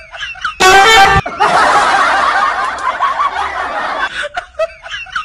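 A loud horn blast lasting about half a second, followed by nearly three seconds of many people laughing together.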